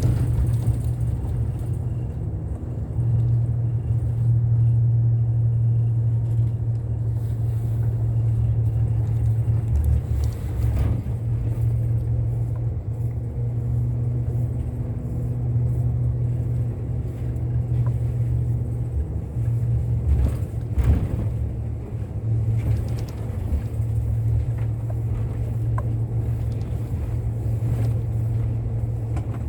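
Bus engine and road noise heard from inside the cabin: a steady low drone, with a couple of brief knocks about 11 and 21 seconds in.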